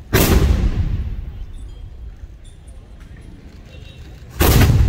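Two cannon shots about four seconds apart, each a loud boom that dies away over about a second. They come from wheeled ceremonial field cannons fired one after another in a firing drill.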